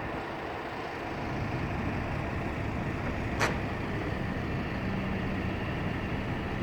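Steady engine rumble with a single sharp click about three and a half seconds in, and a low steady hum coming in past the middle.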